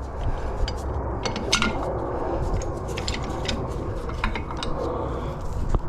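Scattered metal clinks and knocks as a large steel C-clamp is fitted over a brake caliper and pad, ready to push the caliper pistons back, over a steady low rumble.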